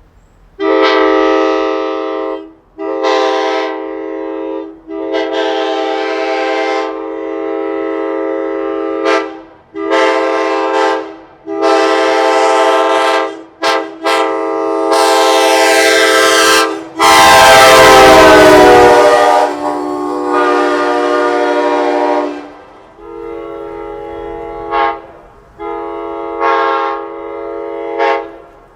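Truck-mounted Leslie K5LA five-chime air horn of the AEM-7 type blowing about a dozen blasts of a steady chord, short ones and longer ones, the longest lasting about five seconds. A loud rushing noise comes in under that long blast about 17 seconds in.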